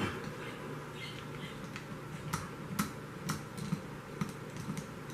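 Light, irregular metallic clicks and taps of a small tool and gun parts being handled while a JRC takedown carbine is taken apart, with a run of sharper clicks from about two seconds in.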